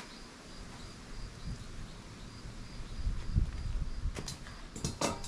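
Outdoor ambience: an insect chirping in an even, pulsing high tone over irregular low rumbles, with a few sharp clicks near the end.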